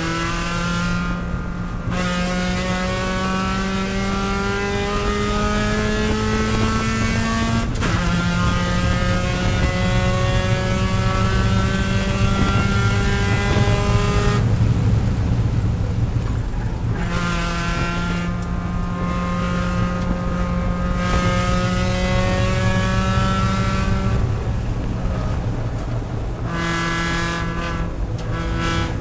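Mazda Miata race car's four-cylinder engine heard from inside the cockpit under hard acceleration, its pitch climbing steadily with a sharp drop about eight seconds in as it shifts up. The engine note falls away for a few seconds around the middle and again a few seconds before the end, then comes back on throttle.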